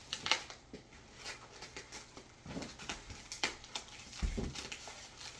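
Items and packaging being handled: scattered clicks, rustles and light knocks, with one low thump about four seconds in.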